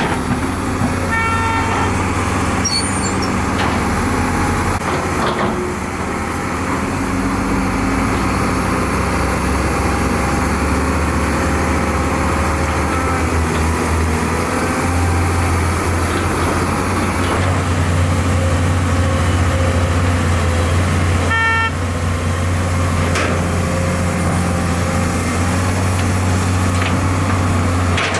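Heavy diesel engines of an excavator and dump trucks running steadily under load, with two short horn toots, about a second in and again about 21 seconds in.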